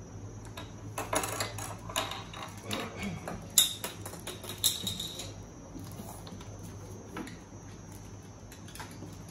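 Small plastic toy building bricks clicking and rattling against each other and the table, mixed with plastic wrapper bags crinkling as the pieces are unwrapped and handled. The clatter is busiest in the first half, with two sharper clicks about three and a half and four and a half seconds in, then thins to a few faint clicks.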